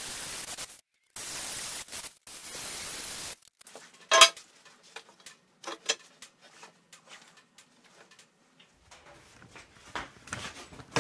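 Milwaukee angle grinder grinding a notch into steel rectangular tube, a steady grinding noise for about the first three seconds with two brief breaks. Then the grinding stops and the steel pieces are handled and fitted together in scattered metal clicks and knocks, the loudest a single sharp clank about four seconds in.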